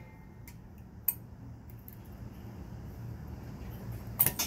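Metal tools and parts clinking on a moped engine as it is taken apart: one sharp click about a second in and a short burst of clinks near the end, over a low steady hum.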